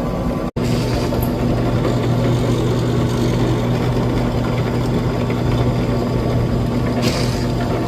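Wood lathe running with a steady motor hum. The sound drops out for an instant about half a second in, and a short hiss comes near the end.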